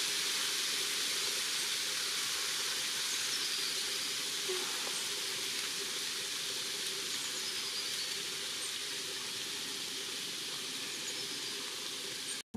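Steady, high hiss of outdoor marsh ambience, with two faint, short, falling bird calls about three and seven seconds in. The sound cuts off suddenly near the end.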